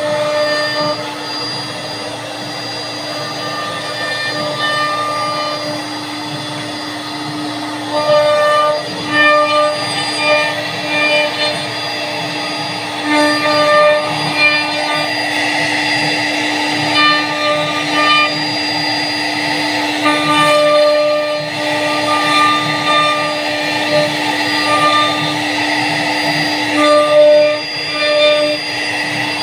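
CNC router spindle whining at a steady high pitch while cutting a design into a wooden door. Its higher tones rise and fall every second or so as the bit bites into the wood.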